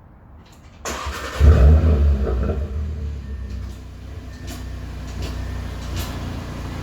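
Audi RS3's 2.5-litre turbocharged five-cylinder engine starting through an AWE SwitchPath exhaust. The starter cranks about a second in, the engine catches with a loud flare of revs, then settles to a steady idle.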